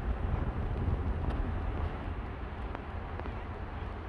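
Outdoor background noise: a steady low rumble with hiss, a little quieter from about halfway in, with a few faint ticks.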